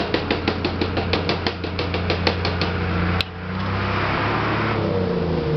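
Rapid, even hammer taps on metal, about seven a second, striking an electric oven's warped door pin to try to straighten it. The tapping stops a little before three seconds in, and a single sharp click follows.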